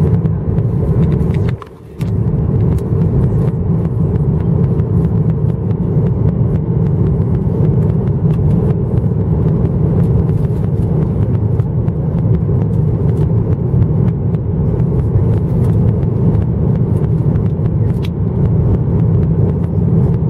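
Steady low roar inside the cabin of a Boeing 737-900ER on descent, from its CFM56-7B engines and the airflow past the fuselage and extended flaps. The sound briefly cuts out about two seconds in.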